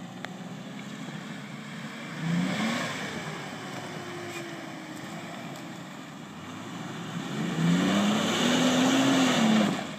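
Ford Explorer's engine revving as it spins around a churned dirt field: one rising rev about two seconds in, then a longer, louder run of high revs near the end that drops off suddenly just before the close.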